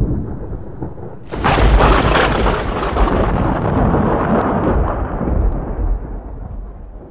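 Thunder sound effect: a low rumble, then a sudden sharp crack about a second in, which rumbles on and slowly fades over the next several seconds.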